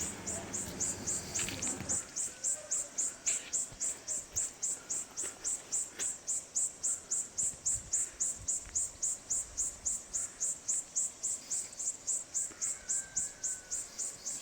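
An insect chirping in a steady, even, high-pitched rhythm of about three pulses a second.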